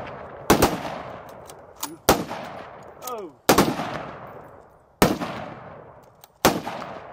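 Volley of gunshots: five sharp cracks spaced about a second and a half apart, each followed by a long echo rolling away across open ground.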